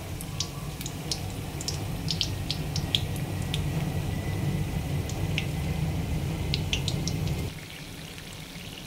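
Spring rolls deep-frying in hot oil in an iron kadhai: a steady sizzle with scattered crackles and pops. A low hum underneath drops away about seven and a half seconds in.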